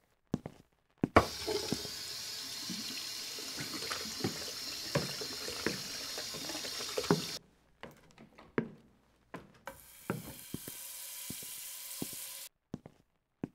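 Running water for about six seconds, with small knocks and clinks in it, cut off suddenly. A few clicks follow, then a shorter stretch of running water that also stops abruptly.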